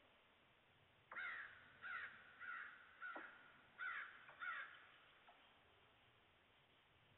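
A crow cawing six times in a quick, evenly spaced series, each call short and harsh.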